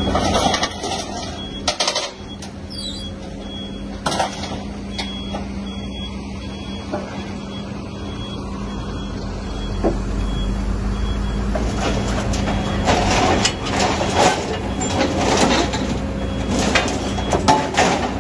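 Hidromek HMK220 excavator's diesel engine running under hydraulic load while its VTN CI200 scrap shear bites into and crunches scrap steel, with sharp metal clanks and scraping that come thick and fast in the last several seconds. A high beep repeats through roughly the first half.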